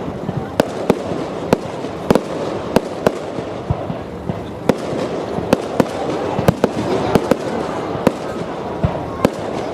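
Fireworks display: irregular sharp bangs of shells bursting, about two a second, over a steady dense din.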